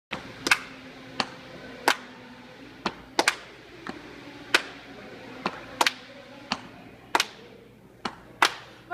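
Sharp single hand claps keeping a loose beat, about fourteen in all, roughly one every two-thirds of a second, with a faint low hum underneath.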